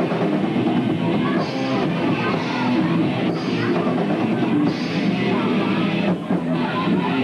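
A live rock band playing loud, with electric guitars and a drum kit.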